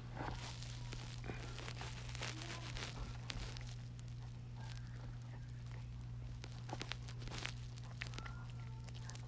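Small dog chewing a treat, with irregular sharp clicks and crackles of teeth working the chew.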